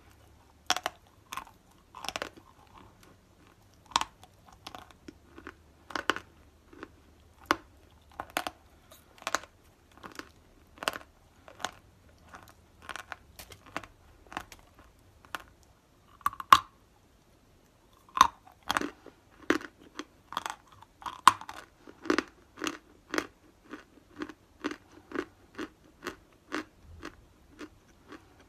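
Dry white clay being bitten and chewed: a run of sharp crunches, roughly one or two a second at first, coming faster and more evenly in the second half.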